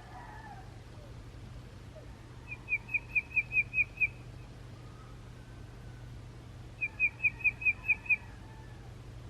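A songbird singing two rapid series of about eight short whistled notes each, a few seconds apart, over a steady low hum.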